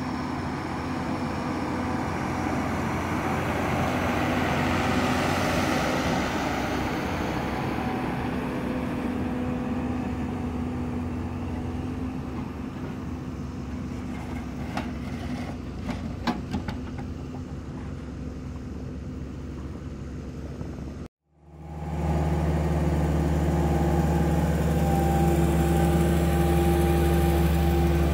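Large four-wheel-drive tractors' diesel engines working under load as they pull earth scrapers, one passing close and swelling then fading, with a few sharp clanks near the middle. After a short break, a Case IH 9370 tractor's diesel engine running steady and louder up close.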